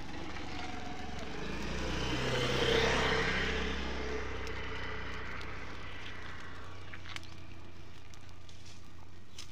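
A road vehicle passing by, growing louder to a peak about three seconds in and then fading away.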